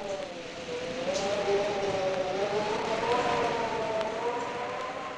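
Eerie sound effect: several held tones waver and glide slowly in pitch over a hiss, drifting a little higher in the second half.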